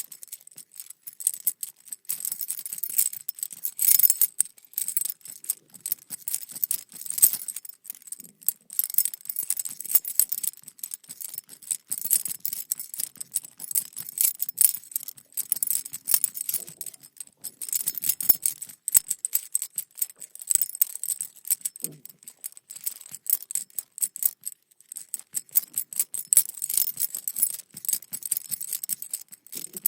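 A bunch of metal keys jangling and clinking, shaken in repeated bursts with brief pauses between.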